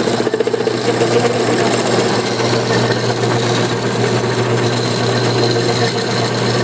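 Enco 7" x 12" horizontal band saw running with no load: its electric motor and blade drive give a steady hum.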